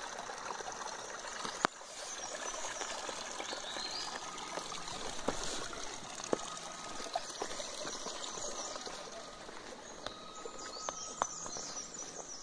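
Small forest stream trickling between rocks, a steady wash of water, with birds chirping in short high phrases several times and a few sharp clicks.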